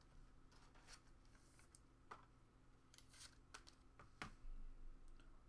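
Near silence with a few faint clicks and rustles of trading cards being handled and set down on a display stand.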